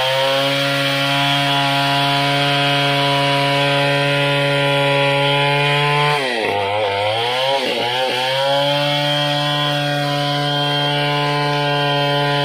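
Two-stroke chainsaw held at full throttle, cutting lengthwise along a squared ironwood log. About six seconds in, the engine drops off twice, then climbs back to the same steady high pitch.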